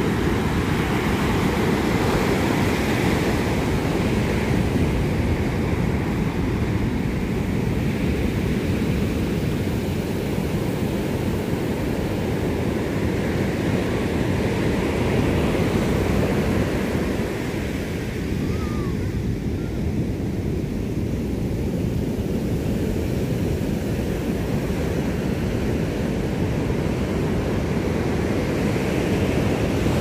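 Ocean surf breaking and washing up the beach: a steady rush that swells and eases every several seconds, with wind on the microphone.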